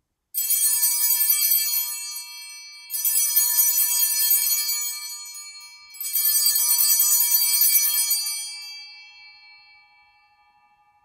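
Altar (sanctus) bells rung three times, about three seconds apart, each a bright ringing that dies away slowly. They mark the elevation of the consecrated host.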